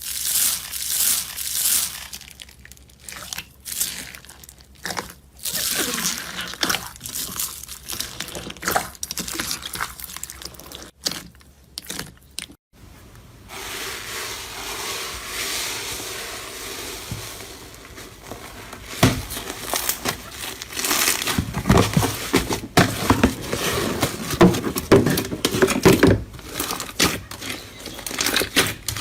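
Slime being squeezed and stretched by hand, making crinkly, crackling squishes in short bursts broken by abrupt gaps. About halfway in, the handling turns continuous, with dense crackling toward the end.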